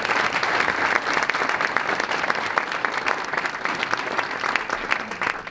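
A room full of people applauding: many hands clapping in a dense, steady patter that begins to die away near the end.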